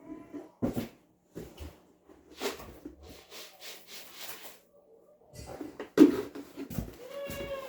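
Irregular knocks, clatter and rustling from handling things, with a sharp, loud knock about six seconds in, then a short pitched call, likely a chicken, near the end.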